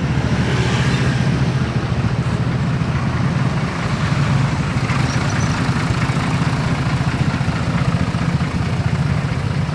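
Bus diesel engine idling steadily, a low even running sound with no horn melody.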